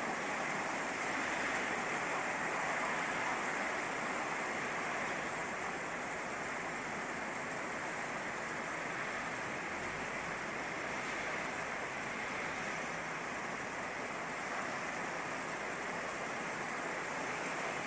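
Steady rain falling over rooftops and streets, an even hiss with no breaks.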